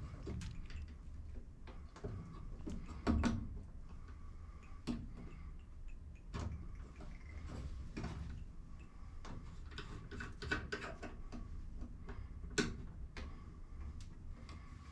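Scattered light clicks and clinks of hands and a wrench working a fuel-line fitting at an electric fuel pump, with a louder knock about three seconds in and another about twelve and a half seconds in.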